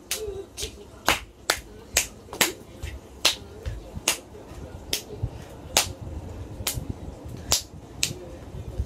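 Sharp, crisp percussive hits, about one a second and unevenly spaced, made by a person dancing with no music playing. Faint voices sit in the background.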